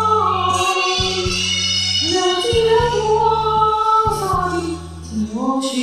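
A woman singing a slow Mandarin ballad over a karaoke backing track, holding long notes over a steady bass line and beat, with a short break between phrases near the end.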